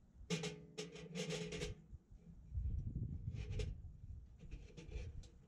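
Stainless steel chimney pipe of a Winnerwell Woodlander wood stove being fitted together by hand: a steady-pitched metallic squeal of pipe sliding into pipe, lasting over a second near the start, then rubbing and a few light metal clicks as the section is seated.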